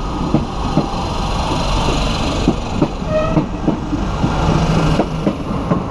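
Euskotren UT200 electric train running past the platform, its wheels clicking over the rail joints in a quick repeated beat over a steady rumble. A brief high tone sounds about three seconds in.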